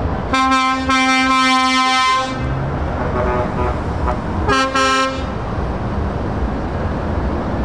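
A vehicle horn blown twice, a long steady blast of about two seconds and then a short one about halfway through, over the steady rumble of trucks driving past.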